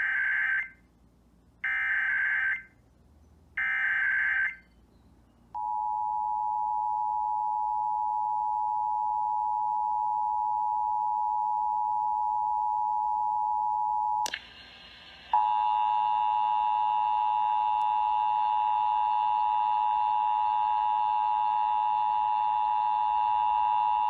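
Emergency Alert System SAME header: three one-second bursts of warbling digital data tones, followed by the EAS two-tone attention signal held steady for about nine seconds. After a click and a brief dip about fourteen seconds in, the two-tone attention signal sounds again, louder and harsher with extra higher tones, to the end.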